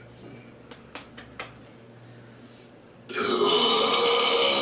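A man's loud, long belch starting about three seconds in and lasting nearly two seconds, preceded by a few faint clicks.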